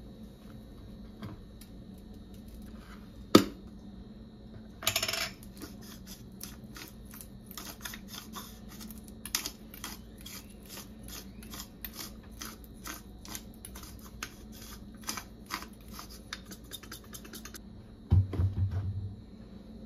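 Spice grinder twisted by hand over food: a steady run of dry clicks, two or three a second, for about ten seconds. Before it comes a single sharp knock, and near the end a short low thud.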